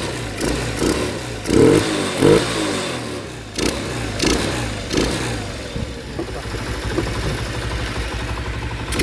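Shineray 50cc motorcycle engine running on its stock intake, without the oil-can intake fitted. The throttle is blipped about five times in the first five seconds, and from about six seconds in the engine settles to a steady idle.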